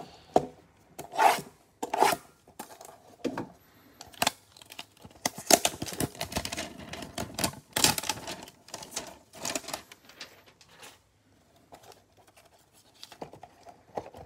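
Cardboard Panini Chronicles hanger boxes being torn open by gloved hands and the plastic-wrapped packs pulled out. Irregular tearing, crinkling and scraping, busiest in the middle and thinning out a little before the end.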